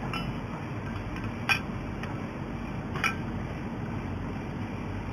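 Two sharp metallic clinks about a second and a half apart, like metal parts knocking together, over a steady low hum.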